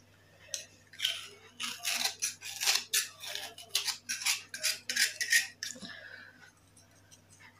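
Knife blade scraping the white outer layer off a wet black clay chunk, a run of short scraping strokes about two a second that dies away near the end.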